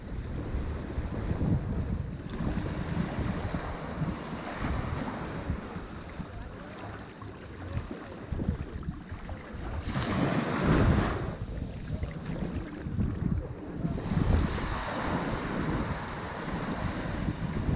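Ocean waves breaking on a shore, the surf swelling and ebbing, with the loudest wave crashing about ten seconds in and another surge a few seconds later. Wind buffets the microphone with low rumbling gusts.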